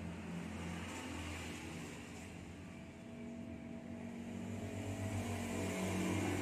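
A steady low engine hum, quieter in the middle and getting louder over the last couple of seconds.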